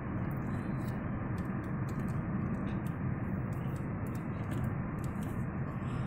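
Steady low drone of a car driving along a road, heard from inside the cabin, with faint scattered ticks.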